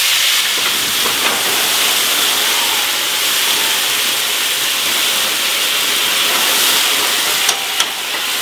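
Chicken breasts frying in a hot pan during a cognac flambé: a steady hiss of sizzling fat and burning alcohol. Two short clicks near the end.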